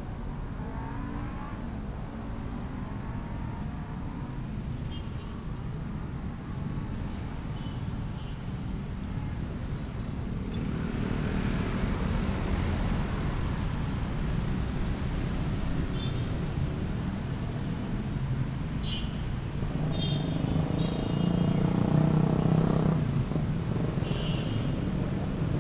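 Road traffic at a junction: many motorcycle and scooter engines idling, then pulling away alongside passing cars. The din gets louder about halfway through and is loudest near the end as the bikes move off.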